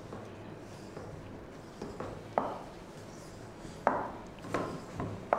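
Hands kneading stiff flour dough in a stainless steel bowl, with about five dull knocks in the second half as the dough is pressed and pushed against the bowl.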